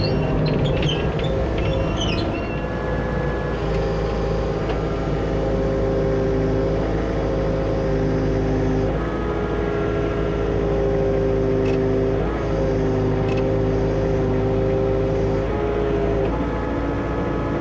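John Deere excavator's diesel engine running steadily under work, its tone stepping down and back up in pitch several times as the machine is worked.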